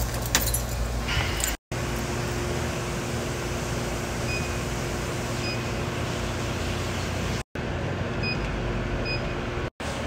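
Short high beeps from a vending machine keypad as its keys are pressed to test the newly installed keypad: two about a second apart near the middle, and two more near the end. They sound over a steady hum, with a few light clicks and knocks of handling at the start.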